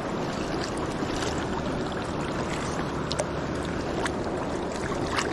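Steady rushing of a flowing river, with a few faint clicks.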